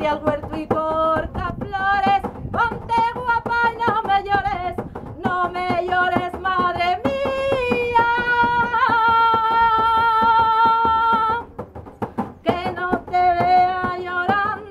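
A woman singing a traditional Asturian song while tapping a pandeiru, a square skin frame drum, with her fingers. About halfway through she holds one long note, breaks off briefly, then sings on over the drum strokes.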